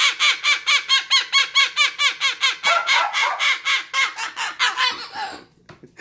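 White cockatoo giving a long, fast run of laugh-like calls, about six or seven a second, each rising and falling in pitch. The calls stop shortly before the end.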